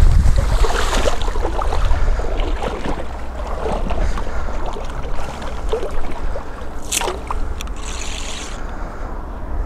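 Lake water sloshing and splashing around a wading angler and his landing net, with wind rumbling on the microphone. There is a short, sharper sound about seven seconds in.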